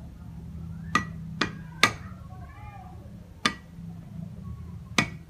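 Meat cleaver chopping on a thick round wooden chopping board: five sharp knocks at uneven intervals, three close together about a second in, then two more spaced out.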